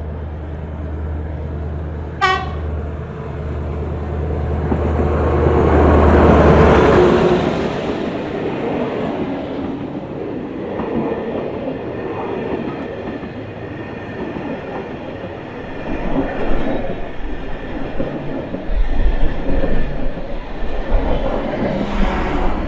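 Locomotive-hauled passenger train (the Royal Blossom, made of former Hamanasu Express coaches) passing close by. The engine's low rumble builds to its loudest about six or seven seconds in, with a short horn toot about two seconds in. Then the coaches roll past with wheel clatter and thumps over the rail joints.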